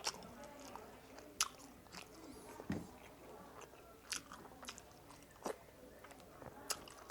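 A person chewing and biting food close to the microphone: wet mouth sounds broken by sharp crunchy clicks about every second and a half.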